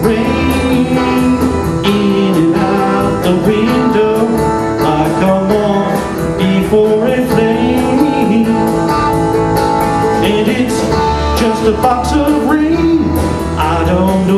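Live rock band playing: acoustic and electric guitars over bass guitar and drums, with a steady run of cymbal ticks on the beat.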